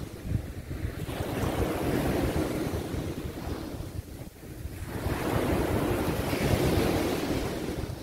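Small sea waves breaking and washing up a sandy shore, rising in two surges with a lull about halfway through, over wind rumbling on the microphone.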